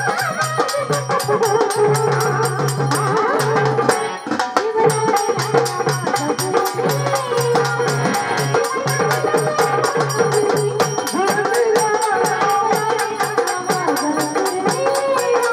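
Traditional Marathi folk music with a fast, steady percussion beat under a melody.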